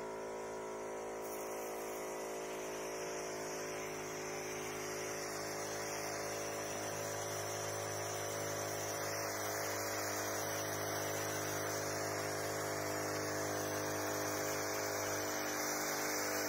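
Portable battery-powered double-pump sprayer running: the spray gun hisses out a fine mist over a steady electric hum from the pump.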